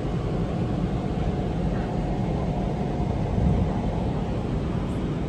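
Deep, steady jet engine and airflow roar heard inside the cabin of a Boeing 777-300ER, with its GE90 engines at takeoff power.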